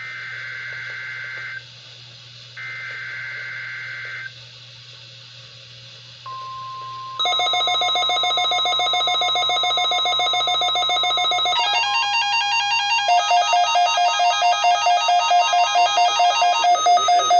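NOAA Weather Radio Required Weekly Test: the last two bursts of the SAME header's digital data tones, a pause, then the steady 1050 Hz warning alarm tone starting about six seconds in. About a second later a weather alert receiver's loud electronic alarm sounds over it, first a steady buzz, then a pulsing pattern of several tones.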